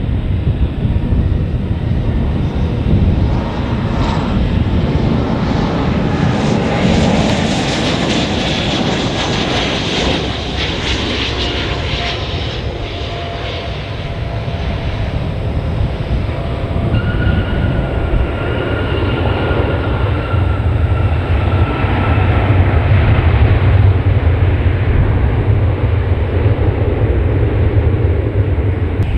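Jet airliner passing close by: the engine roar and hiss build to a peak about a third of the way through, then a thin turbine whine sinks slightly in pitch as it moves away, over a deep rumble that swells again near the end.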